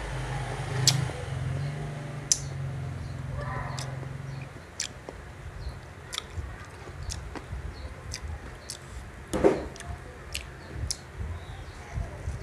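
Close-up mouth sounds of someone chewing Indian mango, with sharp, wet, irregular clicks and smacks. A low droning hum underlies the first four seconds or so, then stops.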